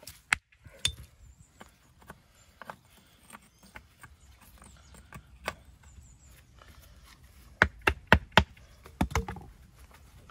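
Sharp knocks of stone on stone as a walling hammer dresses a stone and stones are set into a dry stone wall, with a quick run of four loud knocks about eight seconds in.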